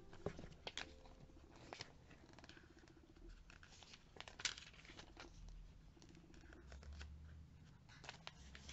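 Glossy catalogue pages being turned by hand: faint paper rustles and soft flicks, with a sharper flick about four and a half seconds in.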